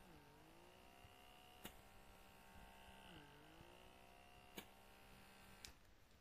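Faint steady whine of a handheld blackhead vacuum's small suction motor, held on the nose. Its pitch sags and climbs back twice, near the start and about three seconds in, and there are three faint clicks.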